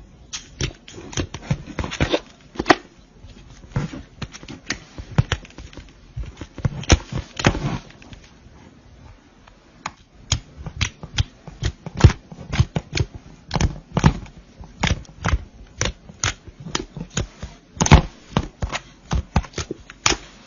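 Slime being squished and pressed by hands, giving a run of irregular sharp pops and clicks from trapped air, with a short lull about eight seconds in.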